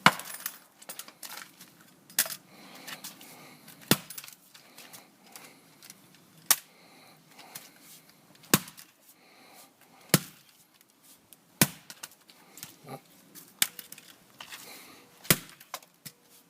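A Stanley FatMax roof stapler being smashed with heavy blows: about nine hard, separate strikes, one every couple of seconds, with cracking and clattering between them.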